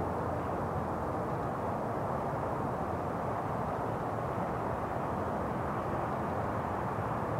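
Steady, muffled rushing noise that stays even throughout, with no distinct events.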